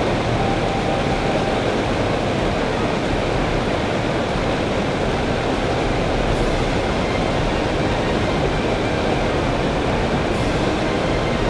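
Steady rushing of river water, an even noise that holds at one level without a break.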